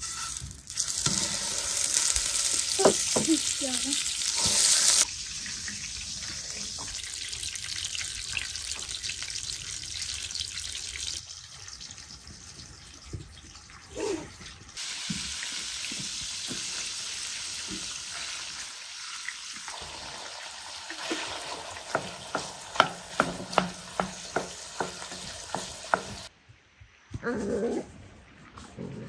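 Potato fries deep-frying in hot oil: a sizzle that starts suddenly about a second in, loudest for the first few seconds, then settles into a steadier sizzle. Near the end a run of sharp taps, about two a second, sounds over the frying.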